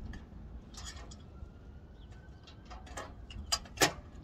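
Clicks and clacks of metal on metal as a platform piece is hooked and locked onto an aluminium folding ladder, a few separate knocks with the loudest a little before the end.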